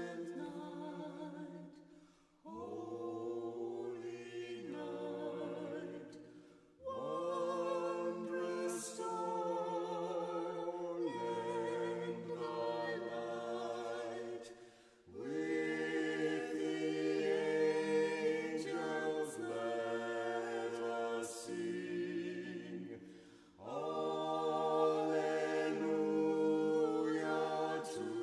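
A choir singing a cappella in long, held phrases, with brief breaks between phrases.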